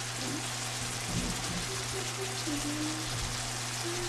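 Chicken pieces and masala frying in a hot pan: a steady, even sizzling hiss.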